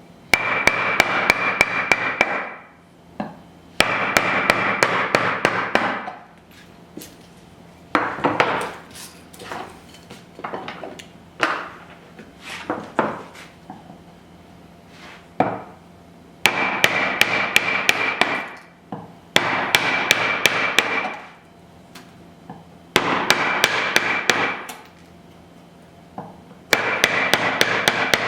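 Mallet driving a chisel into wood in quick runs of blows lasting about two seconds each, with a ringing tone under the strikes. Between the runs come scattered lighter taps and knocks.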